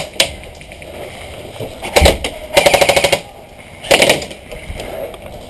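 Airsoft gun firing rapid full-auto bursts of evenly spaced mechanical clacks: a single shot at the start, then three short bursts over the next few seconds.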